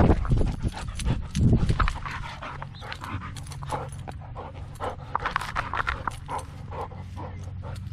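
A dog panting hard, in quick irregular breaths, heard close up from a camera harness on its chest. There are two louder bursts of noise in the first two seconds.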